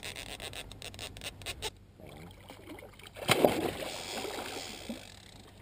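A hooked catfish thrashing and splashing at the surface beside a boat, with a run of quick clicks in the first second or so and one sudden loud splash about three seconds in.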